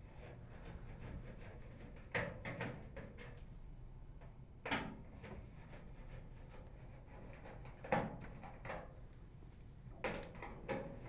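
Clicks, knocks and short rattles from a Torx driver working the rear cover screws of a microwave oven, heard in four brief clusters a few seconds apart.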